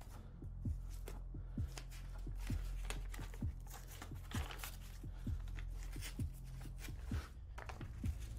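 Paper rustling and crackling as notebook pages are handled and turned. Underneath runs a low droning film score with a soft thud about once a second, like a heartbeat.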